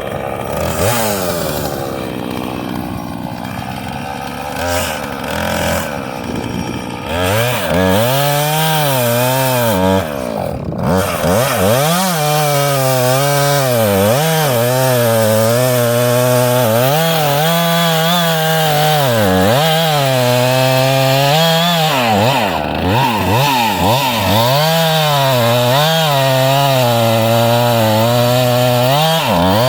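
Husqvarna 445 two-stroke chainsaw running, quieter and lower for the first several seconds, then revved up and cutting into an ash trunk for the back cut. Under load its engine pitch repeatedly dips and recovers as the chain bites into the wood.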